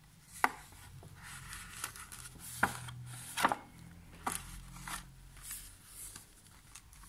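Stiff painted paper pages of a handmade book rustling as they are turned by hand, with several sharp paper snaps as pages flip over. The black card cover is folded shut.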